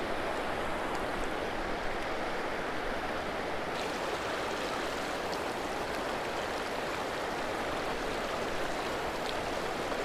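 River water rushing over rocks in shallow rapids, a steady even rush.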